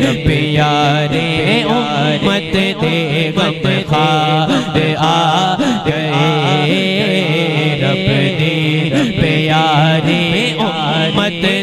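A man singing a Punjabi naat (devotional song in praise of the Prophet) solo into a handheld microphone, his voice winding through ornamented phrases over a steady low drone.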